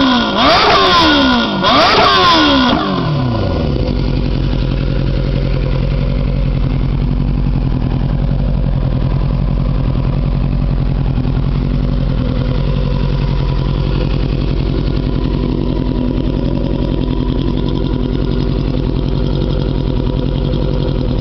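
Yamaha YZF600R inline-four sport bike blipped a few times in quick succession at the start, then settling to a steady idle through a gutted D&D exhaust with its baffling removed, a raspy and loud note.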